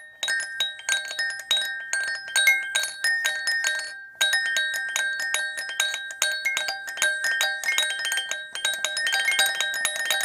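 Small doll bell jingling rapidly: many quick, bright strikes over a ringing tone. There is a brief lull about four seconds in, then the ringing grows denser.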